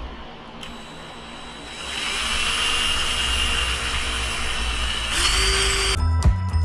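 Power drill running steadily for about three seconds with a high whine, its tone changing just before it stops. Background music with struck notes begins near the end.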